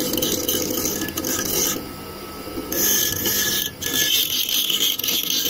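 The edge of a leaf-spring steel cleaver being ground on a small abrasive wheel driven by an electric motor, making a high scraping grind over the motor's steady hum. The grind comes in passes: the blade comes off the wheel for about a second around two seconds in, and again briefly near four seconds.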